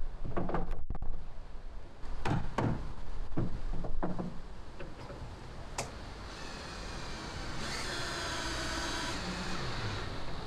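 Several sharp wooden knocks and clicks as a chisel levers a decking board into place, then a cordless drill-driver runs for about four seconds, driving a screw into the decking, its motor whine strongest in the middle.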